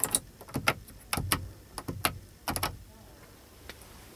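Push-button switches on a 2018 Mercedes-Benz Sprinter's overhead interior light console being pressed: about eight sharp clicks over the first three seconds, then they stop.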